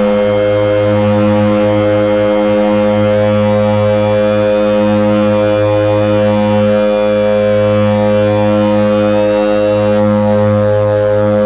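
Heavy electronic drone noise from a Hewlett-Packard 200C audio oscillator and Frequency Analyzer v1 units: a loud, dense chord of steady tones, with the low hum swelling and fading slowly. A high tone steps up in pitch about three seconds in and jumps higher near the end.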